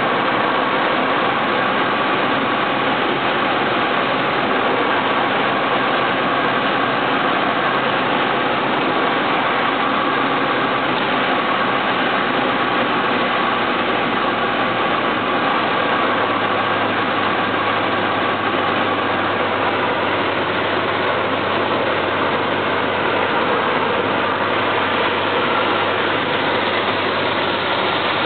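Single-engine light airplane's engine and propeller droning steadily, heard from inside the cockpit; a little past halfway a deeper hum joins in.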